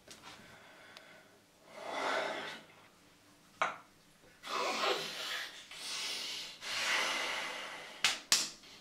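A man breathing heavily and unsteadily into his hands: four long, noisy breaths, as in distress. A few short, sharp sounds fall between them, one in the middle and two near the end.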